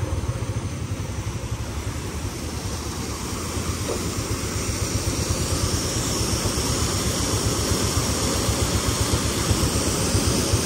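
Motorcycle engine running at low speed with a steady, pulsing low rumble, while the rush of a waterfall grows louder from about halfway through.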